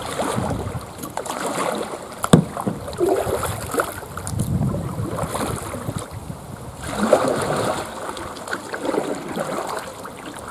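Double-bladed kayak paddle strokes: the blades dipping and pulling through the water in a series of uneven swishes and splashes as the kayak is turned round. A single sharp knock about two seconds in is the loudest sound.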